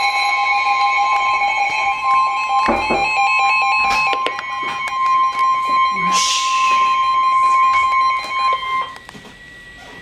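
Several NOAA weather radios sounding their warning alarms at once, overlapping steady and pulsing electronic tones including the steady 1050 Hz weather-alert tone, signalling an incoming warning broadcast. A few knocks come a few seconds in, and the tones cut off about nine seconds in.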